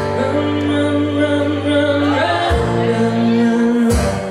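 A woman singing live with her own strummed acoustic guitar, holding long sustained notes over ringing chords, with fresh strums about two and a half and four seconds in.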